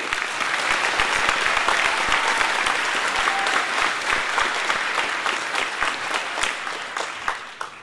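Audience applause: dense clapping that starts as the name is read and fades out near the end.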